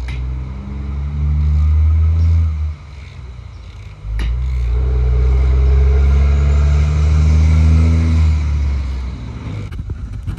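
A low, steady mechanical drone like a running engine or motor, in two stretches: one of about three seconds, then a longer one of about five seconds that starts with a sharp click.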